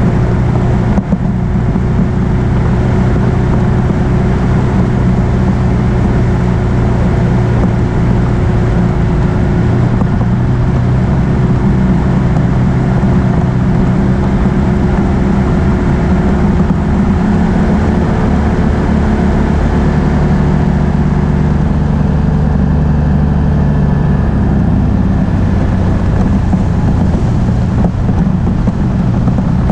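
Can-Am Outlander ATV engine running steadily while riding, its pitch shifting a little about halfway through, over a constant rushing noise.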